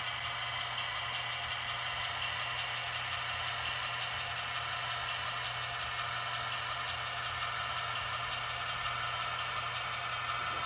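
Sound decoder in a model DSB class My diesel locomotive playing a diesel engine running steadily while the model rolls slowly, heard through its small onboard speaker. A light, rapid, even ticking runs through it.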